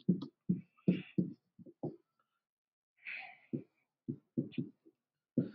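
A stylus writing on a screen: a string of short, soft knocks as the pen strokes land, in two runs with a pause of about a second between them.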